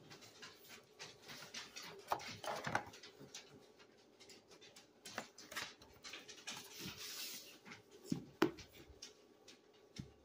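A hardcover book being handled on a table: pages rustling and turning, with soft scrapes and taps. A louder rustle comes about seven seconds in, and a sharp tap follows a second later.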